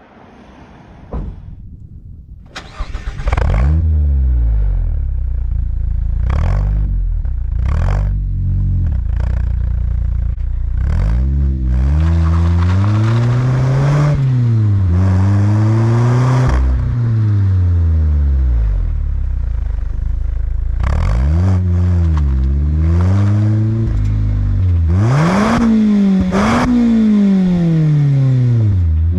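Mazda MX-5's 2.0-litre four-cylinder engine with a Friedrich Motorsport Group A cat-back exhaust. It starts about three seconds in, then is blipped and revved again and again, the pitch rising and falling with each rev. It is loud.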